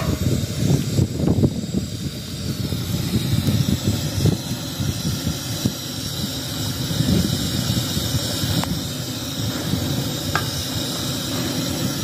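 Wind buffeting the microphone: an uneven low rumbling rush that swells and dips.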